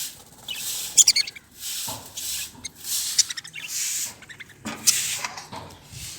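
Budgerigars chattering: high, scratchy warbles and quick chirps in short bursts about once a second.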